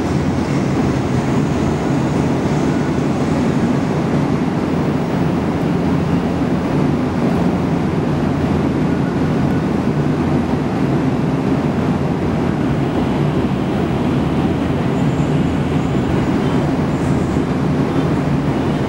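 Bombardier-built TTC T1 subway train approaching slowly through the tunnel: a steady low rumble in the underground tunnel.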